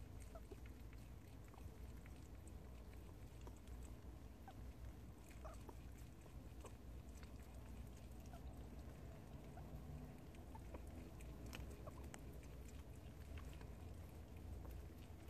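Prairie dog chewing a homemade treat held in its front paws: faint, irregular little crunches and clicks of nibbling.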